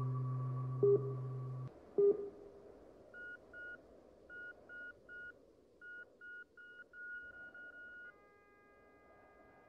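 The end of a synth track: a held synth chord and plucked notes cut off a little under two seconds in. Then come faint short electronic beeps in small groups, quickening near the end, followed about eight seconds in by a faint held chord of several tones.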